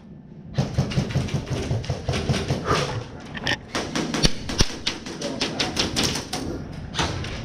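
Rapid, irregular ticking and tapping of airsoft fire around an indoor field, the clicks of other players' guns and BBs striking plywood barriers, starting about half a second in after a brief lull.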